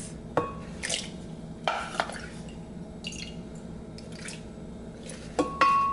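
Soaked, softened guajillo chiles dropping off a wooden spoon into a glass blender jar: a few scattered wet plops and drips of their cooking water, with light knocks of the spoon on the glass.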